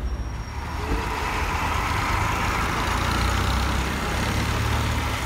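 Minibus engine idling steadily, a low hum, growing a little louder about a second in.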